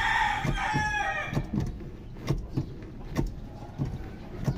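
A rooster finishes a crow in the first second. After it come a series of light knocks, spaced unevenly, as the truck's brake pedal is pressed and worked by foot to test a pedal that sinks under steady pressure.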